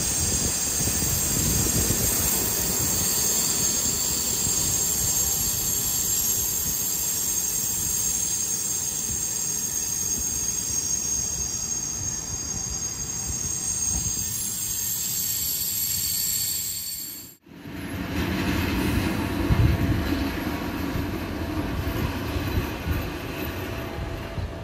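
Passenger coach running on the rails, heard through its open window, with a steady high-pitched metallic squeal from the wheels over the noise of the running gear. After a sudden cut about two-thirds of the way through, a lower rumble of a train moving.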